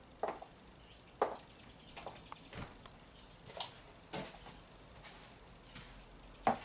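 Scattered light clicks and knocks, roughly one a second, like objects being handled.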